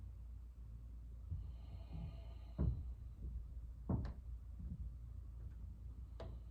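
A handful of soft thumps and knocks over a low, steady room hum, the loudest two near the middle and a sharper one near the end.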